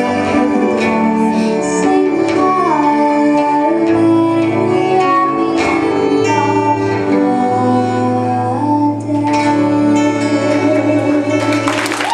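Live folk music on acoustic guitar and fiddle playing the closing bars of the song, with held notes and sliding pitches. Audience applause breaks out at the very end.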